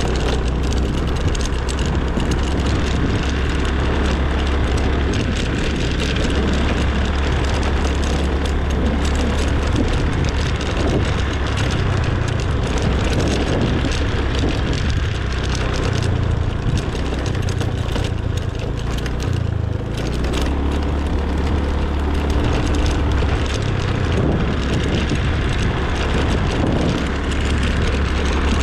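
Wind rushing over the microphone and a motor scooter's engine running as it rides along a rough, potholed road, the sound easing slightly about twenty seconds in.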